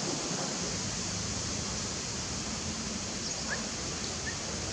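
Steady outdoor background hiss, with two faint brief chirps near the end.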